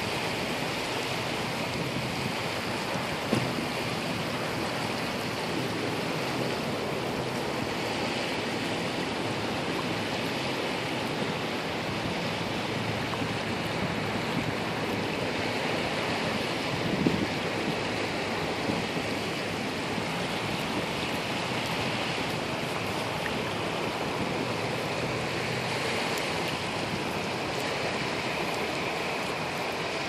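Sea surf washing up the beach in a steady rush that swells and eases every few seconds. There are two brief knocks, the louder one about seventeen seconds in.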